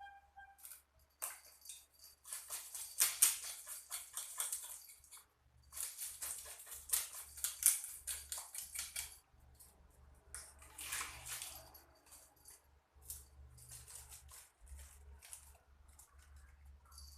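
A knife scraping scales off biawan fish (kissing gourami) in rapid strokes, in bursts of a few seconds with short pauses between fish or grips.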